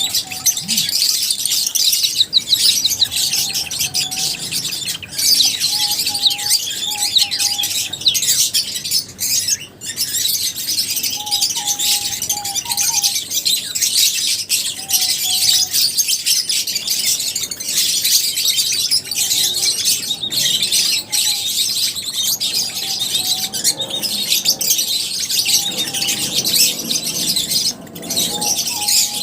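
A flock of lovebirds chattering: a dense, unbroken mass of high-pitched chirps and squeaks, with short, lower whistled notes cutting in every few seconds.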